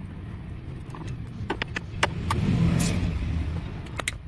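A few short sharp clicks and knocks as a long screwdriver works at the screws and clips holding a Nissan 370Z's plastic side skirt, over a steady low rumble.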